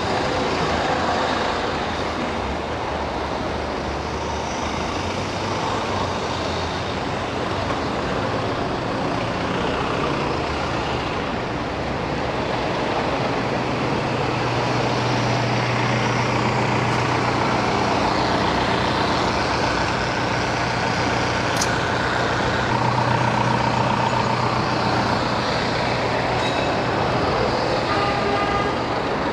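Road traffic heard while riding a bicycle through the city, dominated by a heavy vehicle's engine whose low hum is strongest through the middle and later part.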